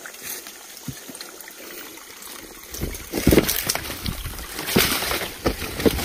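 Footsteps crunching through dry leaf litter and brushing past forest undergrowth, with scattered crackles at first and a louder, denser run of crackling and rustling starting about three seconds in.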